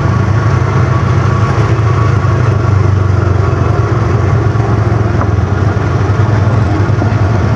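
Side-by-side UTV engine running steadily while it is driven down a rough dirt trail, loud and heard from the driver's seat.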